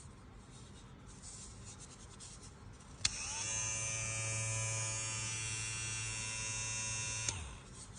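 Electric hair clipper switched on with a click about three seconds in, running with a steady buzz for about four seconds, then switched off with a click near the end. Faint handling rustle before it starts.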